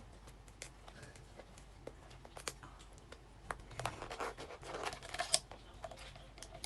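Crab shells being cracked and picked apart by hand while eating, heard as scattered sharp clicks and crackles, with a denser stretch of crackling about four to five seconds in.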